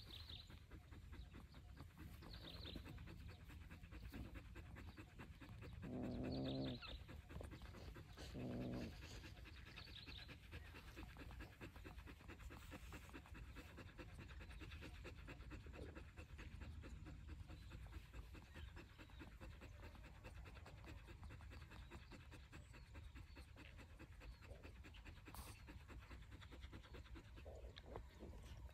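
Dog panting steadily with quick, even breaths. Twice, about six and eight and a half seconds in, a louder short pitched animal call sounds over it.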